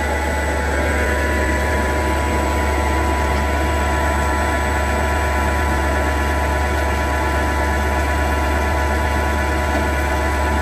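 Small CNC turning lathe running its automatic cycle, the spindle turning an aluminium workpiece as the tool cuts it: a steady low hum with several steady higher tones over it.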